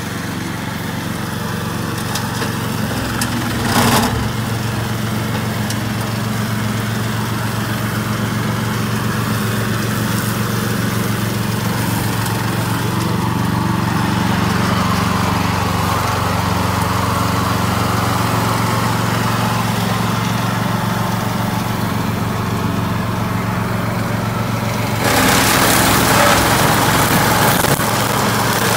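The engine of a Vezdekos TS 1000 self-propelled brush mower runs steadily while it mows rough grass and weeds. There is a brief knock about four seconds in. About three seconds before the end, a louder rushing hiss joins the engine.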